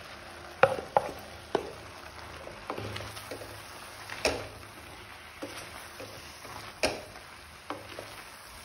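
A spatula stirring sliced mushrooms into frying tomato masala in a kadai, knocking and scraping against the pan in sharp, irregular clacks over a low sizzle.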